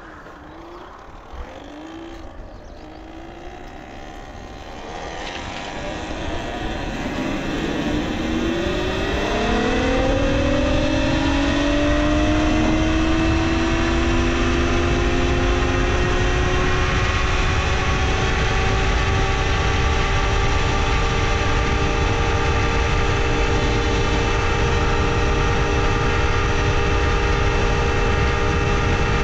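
Talaria Sting R electric dirt bike accelerating. Its motor whine rises in pitch over about ten seconds, then holds steady at cruising speed above a low rushing noise that grows with it.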